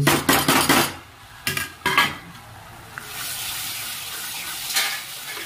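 Crushed tomato going into hot oil and spice paste in a nonstick pan, sizzling hard as a steel spoon scrapes and stirs it. A couple of sharp clanks of the spoon on the pan come about one and two seconds in, then a steady frying hiss from about three seconds.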